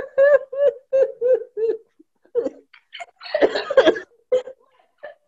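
Hearty laughter: a run of quick, evenly spaced "ha" pulses for about two seconds, then a breathier burst of laughter about three seconds in.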